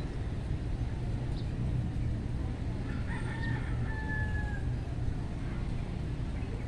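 Rooster crowing faintly: one crow that starts about three seconds in and lasts about a second and a half, over a steady low background rumble.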